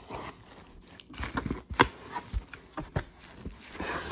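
Cardboard box flaps being handled and a plastic-film insulated shipping liner crinkling and rustling under a hand, in irregular scrapes and clicks with one sharp click a little under two seconds in.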